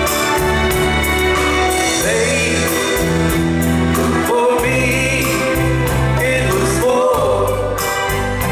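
Live band playing: a male lead singer comes in about two seconds in, singing with a wavering vibrato over electric guitar and drums.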